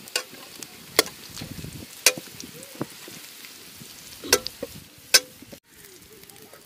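Oil sizzling in an aluminium wok while a steel ladle scrapes the pan and clinks against it about six times, some strikes ringing briefly, as fried turmeric-coated boiled eggs are lifted out.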